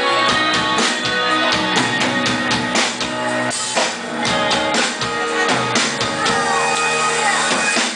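Live band playing an instrumental passage, with drum kit hits over held guitar and keyboard tones.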